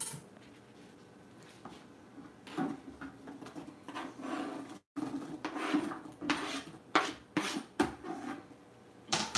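Kitchen knife scraping diced apple off a plastic cutting board into a plastic jug of liquid: a series of scrapes and knocks, more frequent and louder in the second half.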